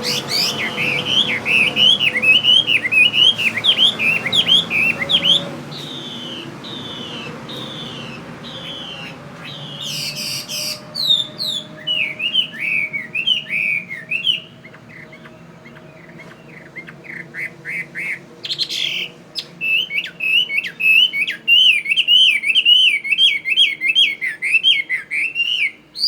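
Chinese hwamei (họa mi) calling in fast runs of short sweeping notes, several a second. The bird eases off for a few seconds past the middle and then starts up again, with two short noisy bursts along the way.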